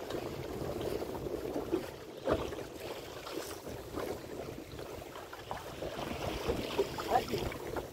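Wind buffeting the microphone and choppy waves washing against a small open boat's hull, with scattered irregular knocks.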